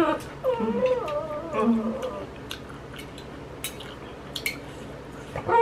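A dog whining in high, wavering whimpers for about the first two seconds, then light clinks of metal chopsticks and a spoon against a ceramic plate.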